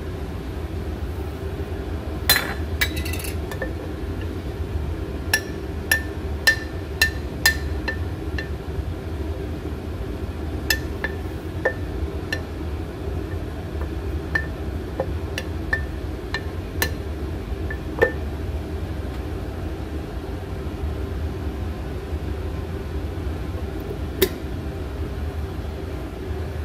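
Metal spoon clinking against the sides of a glass jar while stirring thick sourdough starter: about two dozen sharp clinks in irregular runs, with a cluster a couple of seconds in and a last single clink near the end. A steady low hum runs underneath.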